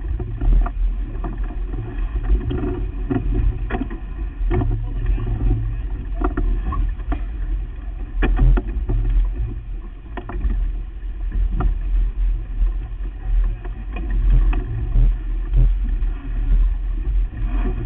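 Sailboat under way: a steady, uneven low rumble of wind and water, with scattered knocks and clicks from gear being handled as the spinnaker is doused.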